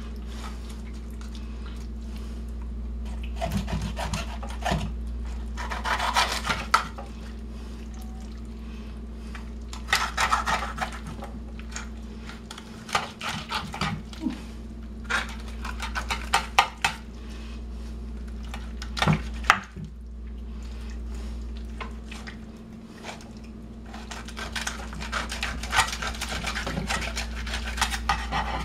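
A knife and a serving spoon scraping and clinking against a glass baking dish as a tender slow-cooked whole chicken is pulled apart, in irregular scrapes and taps. A steady low hum runs underneath.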